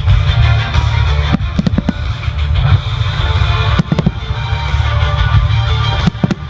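Loud show-soundtrack music with a heavy bass and guitar, played over loudspeakers, with clusters of firework bangs and crackles about a second and a half in, around four seconds in, and again near the end.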